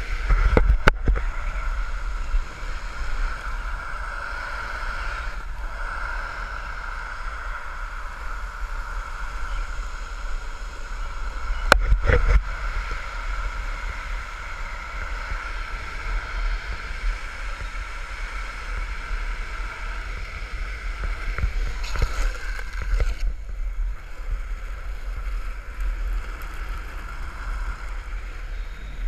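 Wind rushing over a board-mounted action camera and a downhill longboard's urethane wheels rolling fast on asphalt, a steady rumble with a high steady tone over it. A few sharp knocks near the start and a loud one about twelve seconds in.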